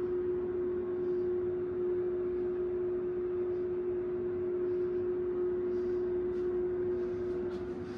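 Ventilation fan running: a steady hum at one unchanging pitch over a soft rushing noise.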